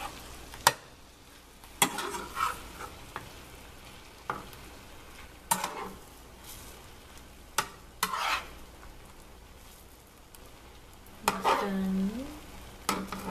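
Chicken pieces sizzling in a nonstick frying pan while a slotted spatula turns them, scraping and knocking against the pan every second or two.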